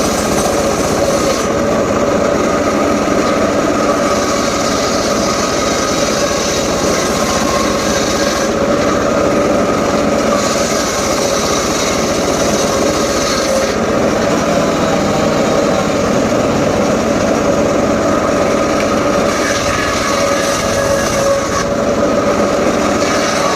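Homemade circular saw rig running at a steady speed, with three stretches of higher-pitched hissing sawing as the blade cuts through mahogany: near the start, about ten seconds in, and about twenty seconds in.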